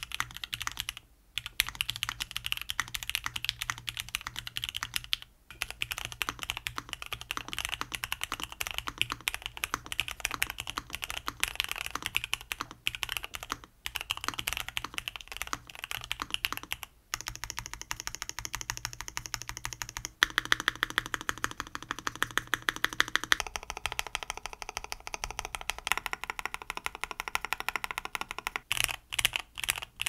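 Typing on a Jamesdonkey RS2 3.0 gasket-mount mechanical keyboard with Gateron G-Pro Silver linear switches, an FR4 plate and double-shot PBT keycaps: dense clicking keystrokes. It is heard first stock, then with clipped and lubed stabilizers and a tape mod that gives a tapey tone. Near the end the strokes come fast and evenly spaced.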